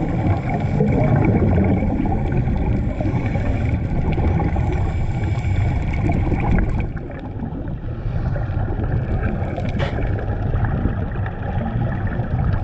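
Muffled underwater noise heard through a waterproof camera housing: a steady low rumble with the gurgle of scuba divers' exhaled regulator bubbles, easing a little about seven seconds in.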